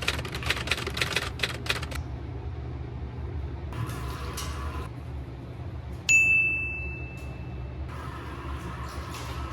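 Household clatter: a quick run of sharp clicking and tapping for about two seconds, then about six seconds in a single bright ding that rings out for over a second, over a steady low hum.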